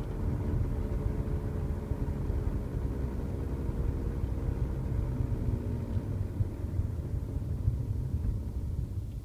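Mercedes-Benz W202 C230 Kompressor running: a steady low rumble with faint tones that drop slightly in pitch over the first few seconds, easing off near the end.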